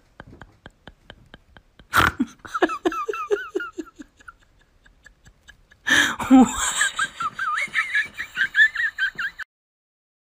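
Laughter: a hearty laugh breaks out suddenly about two seconds in, after a run of quick, even ticks, and a longer, higher-pitched laugh starts about six seconds in and cuts off abruptly.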